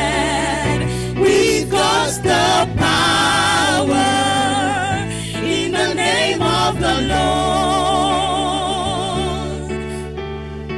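Women's gospel vocal group singing together, with wide vibrato on held notes, over a sustained electric keyboard accompaniment; the voices drop away near the end.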